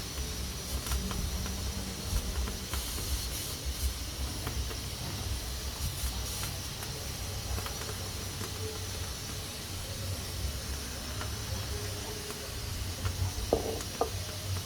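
Pressure cooker hissing steadily as steam escapes from its valve, over a steady low rumble, with a couple of short knocks near the end.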